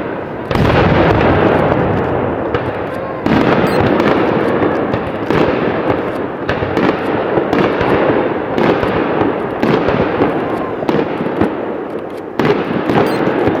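Fireworks shells bursting one after another, about eight booms, each trailing off in a long echoing rumble, with brief crackling twice.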